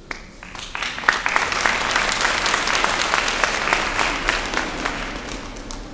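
Audience applauding, starting within the first second, holding steady through the middle and thinning out near the end.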